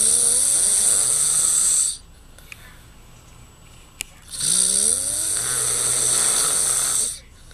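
A man snoring loudly: two long snores of about two and a half seconds each, each opening with a rising pitch, with a quiet pause of a couple of seconds between them.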